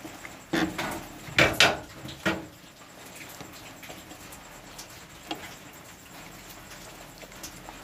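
A wooden spoon knocks against the side of a stainless steel pot about five times in quick succession while stirring tapioca pearls in boiling water, then the sound settles to the low bubbling of the boil, with one light tap a few seconds later.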